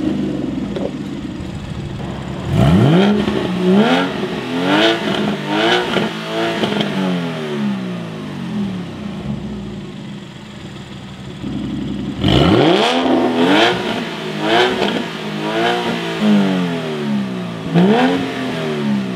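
Porsche Boxster Spyder's flat-six, breathing through a SOUL Performance exhaust with turndown tips, revved in place in two runs of quick blips, each rising and falling in pitch. A few seconds of idle lie between the runs. The second run has the exhaust valves open.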